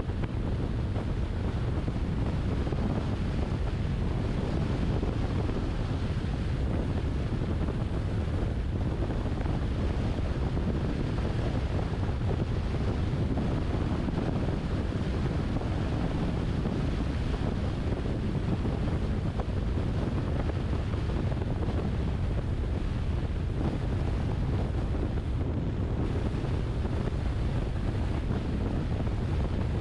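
A moving car's steady wind and tyre noise, an even low rumble that does not change.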